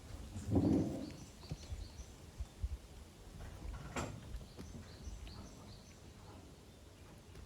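Quiet goat-pen ambience: a brief low call about half a second in, then scattered light knocks, a sharp click about four seconds in, and faint high bird chirps.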